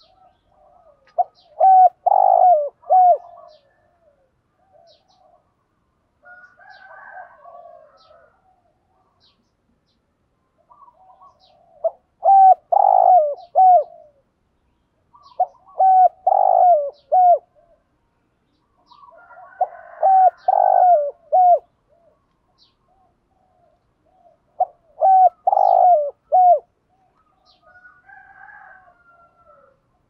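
Spotted dove cooing in the rapid urging 'thúc gù' style: five loud phrases of several quick coos each, repeated every few seconds. Fainter calls come in between.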